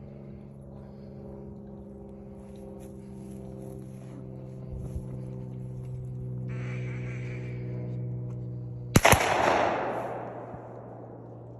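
A single shotgun shot from the field gunners about nine seconds in: a sharp crack with an echo that fades over about a second and a half. A steady low hum runs underneath throughout.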